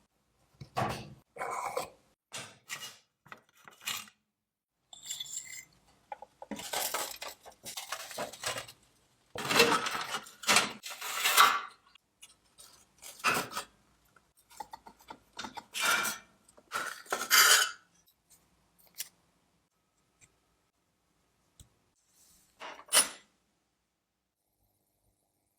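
Metal tools and parts clinking and scraping during hand repair work, in irregular bursts with short quiet gaps and one last sharp clink near the end.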